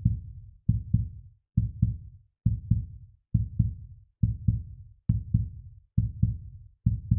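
Heartbeat sound: paired low thumps, lub-dub, repeating steadily about once every 0.9 seconds, around 68 beats a minute.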